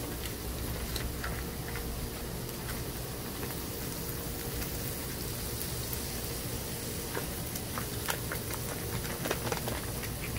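Ground beef sizzling on a hot Blackstone flat-top griddle: a steady hiss with scattered small pops and crackles.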